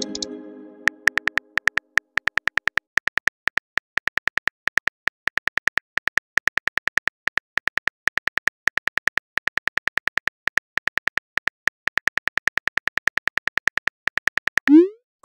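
Texting-app sound effects: a message-alert chime fading out at the start, then rapid phone-keyboard typing clicks, several taps a second, as a long message is typed. Near the end a short rising swoosh, the sound of the message being sent.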